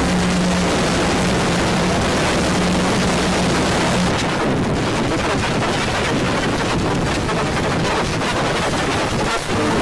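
Loud, harsh static noise from an emergency alert alarm, with a steady low hum under it for about the first four seconds and a rougher, crackling texture after that.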